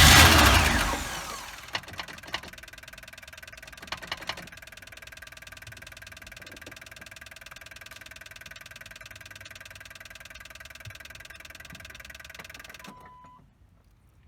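A long-dormant 1984 Pontiac Trans Am V8 catches on a cold, hard start with a loud burst that dies away over a second or so. It then runs steadily and evenly, with a few clicks in the first few seconds, and is cut off about 13 seconds in.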